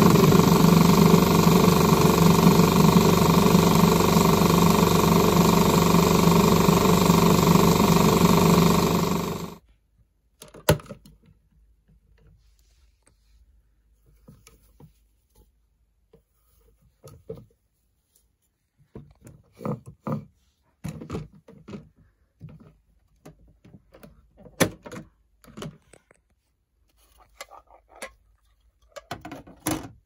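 Bosch front-loading washing machine running a spin, a loud steady hum with several tones, cutting off abruptly about ten seconds in. After that come scattered soft thunks and clicks of the door and wet laundry being handled in the drum.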